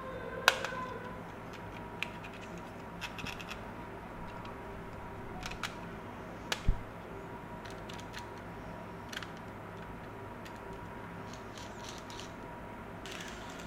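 Scattered clicks, taps and scraping from hands handling packaging and a model train during unboxing, over a steady background hum. The sharpest click comes about half a second in, and a heavier knock about six and a half seconds in.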